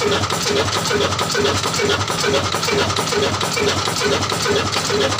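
Old slow-speed single-cylinder 'desi black' diesel engine of the Ruston type running steadily, firing in an even rhythm of about four beats a second.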